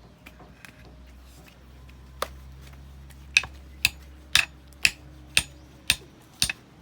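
A small child hammering: sharp hammer blows, one about two seconds in and then a steady run of about two a second, each a crisp ringing knock.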